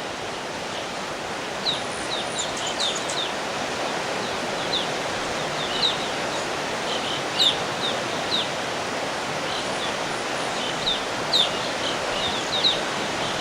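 A flock of evening grosbeaks calling, with short, sharp chirps scattered irregularly over a steady rushing background noise.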